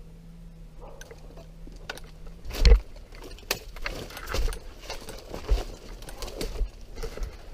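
Footsteps and rustling with irregular low thumps and clicks, a heavy thump about two and a half seconds in. A low steady hum stops just before that thump.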